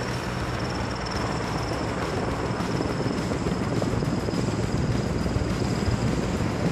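Heavy vehicle engine running steadily, a dense rumble with a faint high whine above it.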